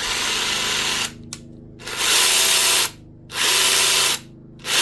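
DeWalt DCF891 cordless impact wrench triggered in four short bursts of about a second each, its motor and gears running with a noisy grinding. The noise comes from gear teeth damaged by a chip of metal that broke off inside the tool.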